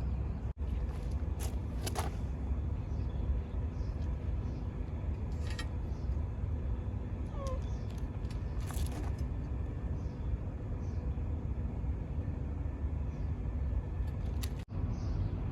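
Steady low rumble with a few faint clicks, and a short falling chirp about seven and a half seconds in.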